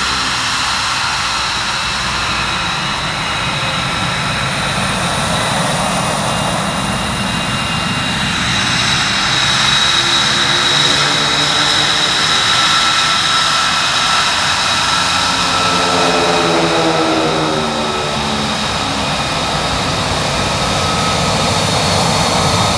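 F-22 Raptor and F-35A Lightning II fighter jets taxiing at low power: steady jet noise with a high-pitched turbine whine, swelling a little about halfway through as a jet rolls past.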